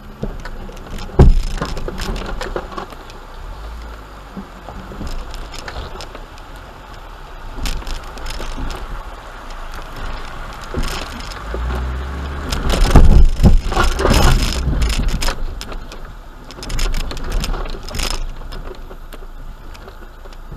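Suzuki Grand Vitara crawling slowly over a rocky creek bed, heard from inside the cabin. A low engine rumble runs underneath, with knocks and rattles as the wheels climb over the rocks. The loudest knock comes about a second in, and there is a cluster of them about two-thirds of the way through.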